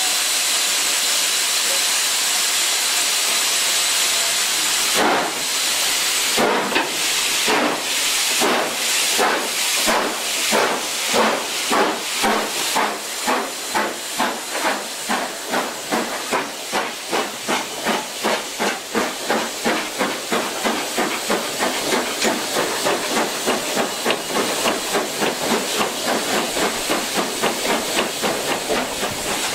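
GWR King class four-cylinder 4-6-0 No. 6023 King Edward II heard from the footplate getting under way. A steady hiss of steam for about five seconds, then the exhaust beats begin, slow at first and quickening steadily to about three a second as the engine gathers speed.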